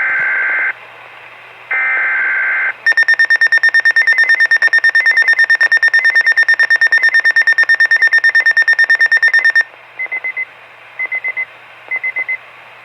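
Weather radio emergency alert: two short buzzing bursts of the encoded warning header, then a high alarm tone pulsing rapidly for about seven seconds. After that come short groups of beeps about once a second.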